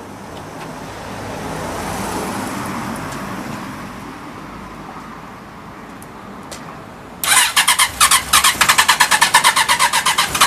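Suzuki GSX-R750 inline-four engine turned over by its electric starter: about seven seconds in, a loud, even chugging of about eight beats a second starts suddenly. Before it, a softer rushing noise swells and fades.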